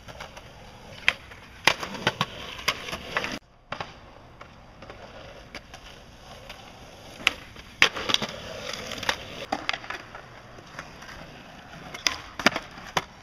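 Skateboard wheels rolling on concrete, broken by sharp clacks of the board popping and landing, coming in pairs about half a second apart, three times.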